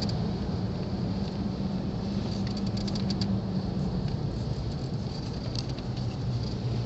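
Cabin sound of a 4x4 on the move: steady engine and road hum, with light rattles from the interior, a cluster of them about halfway through.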